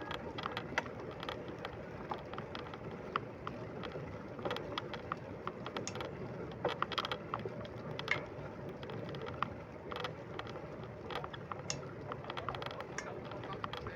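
Bicycle freewheel ratchet clicking irregularly as the rider coasts, over a steady rushing noise of riding.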